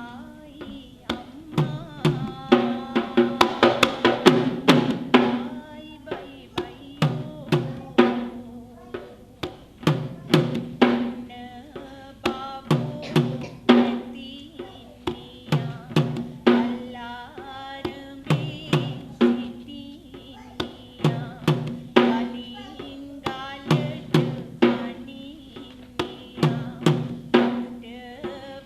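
Traditional Sri Lankan drums played in a fast rhythmic pattern of sharp, pitched strokes, with a dense flurry of beats a few seconds in.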